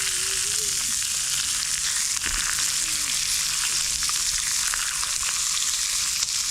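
Food frying in hot fat over a campfire: a steady sizzle with fine, fast crackles.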